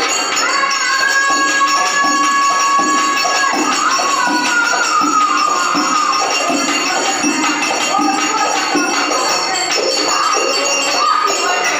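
Live traditional stage music: a melody of long held notes that later slide and change pitch, over a beat of jingling percussion.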